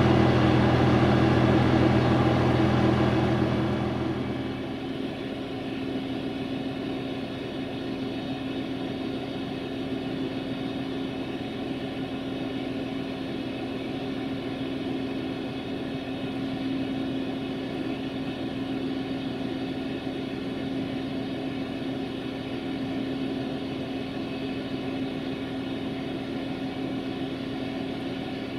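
Diesel passenger train running past close by, its wheels and engine loud with a low drone. About four seconds in it gives way to a quieter, steady diesel engine hum with one held tone.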